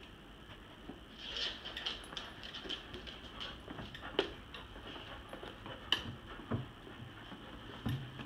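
Dogs scuffling over a plush toy, their claws clicking and pattering on the wooden floor and rug, with a few sharper taps scattered through.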